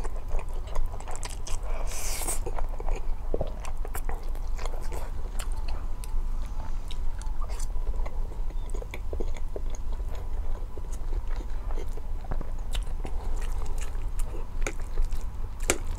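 Close-miked mukbang eating sounds: a person chewing and biting a mouthful of food, with many small, irregular wet clicks from the mouth. There is a brief louder hiss about two seconds in, and a steady low hum underneath.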